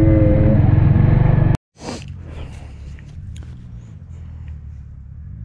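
Dirt bike engine running, cutting off abruptly about a second and a half in; a much quieter low background sound follows.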